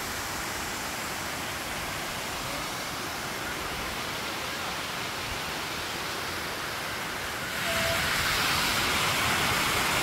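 Steady rushing of a mountain stream tumbling over small waterfalls, which grows louder about three-quarters of the way through.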